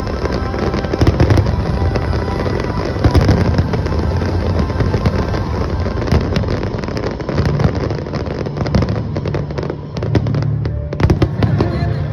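Fireworks display: a dense run of bangs and crackles, with a cluster of sharp cracks near the end, over background music.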